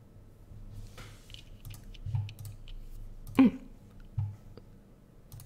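Faint scattered clicks and soft mouth noises, with a short louder mouth or voice sound about three and a half seconds in.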